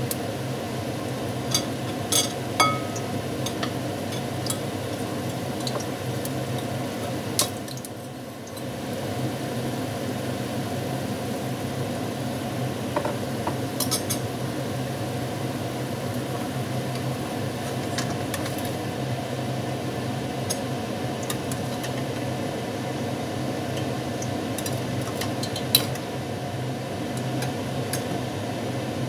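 Chicken sizzling and simmering in its sauce in an enamel frying pan over a steady low hum. Now and then a metal slotted spatula clicks and taps against the pan.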